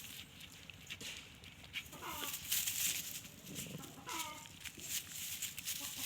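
Chickens calling: short, falling calls about every two seconds, over a steady crackle and rustle.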